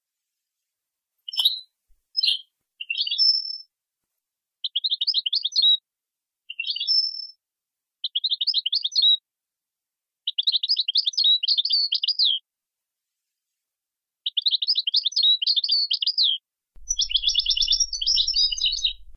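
European goldfinch singing: about eight short phrases of rapid twittering trills and buzzy notes, separated by gaps of complete silence.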